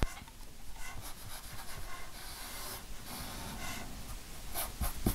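Wide, coarse paintbrush rubbing acrylic paint onto a tray: a faint, scratchy brushing sound, with a click at the start and a few small knocks near the end.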